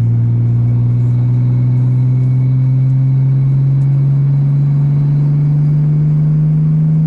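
Car engine heard from inside the cabin, accelerating, its note rising slowly and steadily.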